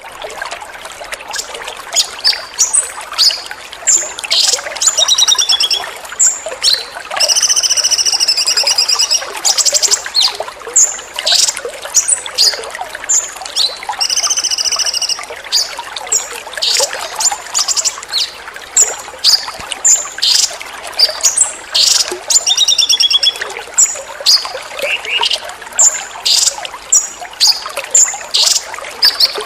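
Trickling water with a songbird calling over it in quick, high-pitched bursts of song, including two longer rattling trills. This is 'tembakan' style song used as masteran, recorded song for teaching caged songbirds.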